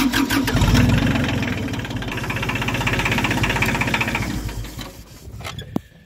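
Kubota compact tractor's diesel engine throttled up and running hard as the tractor turns around, easing off about five seconds in.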